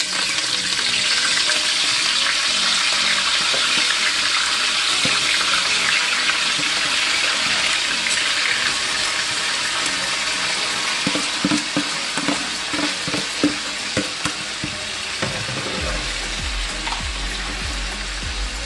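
Shrimp and crab legs sizzling in hot oil in a metal pot as they are turned with metal tongs: a steady frying hiss, with a few short knocks of the tongs against the pot about two-thirds of the way through.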